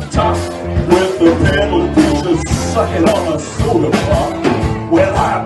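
Live blues band playing: electric guitar, bass guitar and drum kit, with a male singer on vocals.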